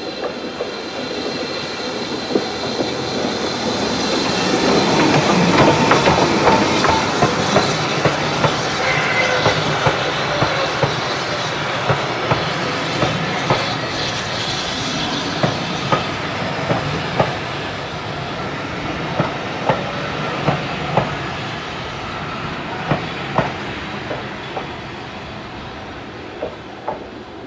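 BR Standard 4MT tank steam locomotive No. 80151 running past with its train, loudest about six seconds in. Then its coaches roll by, their wheels clicking over the rail joints again and again, and the sound fades as the train draws away.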